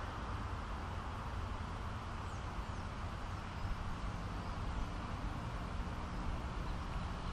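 Wind buffeting the microphone, a steady low rumble, with a few faint bird chirps about two to three seconds in.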